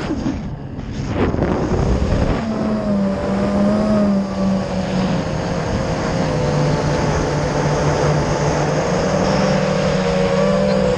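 FPV quadcopter (Armattan Rooster clone) in flight: its brushless motors and 5042 propellers hum, the pitch falling sharply at the start as the throttle drops, then holding a steady hum that shifts slightly with throttle. Wind rushes over the onboard camera's microphone.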